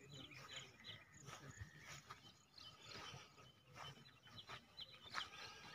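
Faint bird chirping, a run of short high repeated calls, over an otherwise quiet open field.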